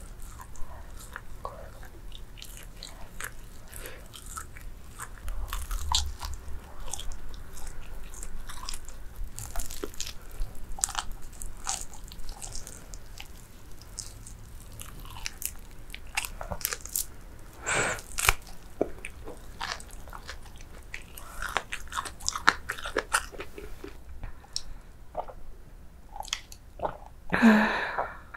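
Close-miked eating of fried chicken: crunchy bites and chewing with many small crackles of the crispy coating. Near the end comes one loud, short slurp through a drinking straw.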